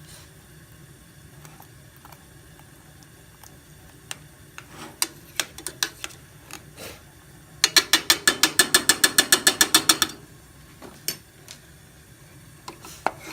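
A rapid, even run of sharp mechanical clicks, about seven a second for some two and a half seconds, like a ratchet. A few scattered clicks and knocks come before and after it.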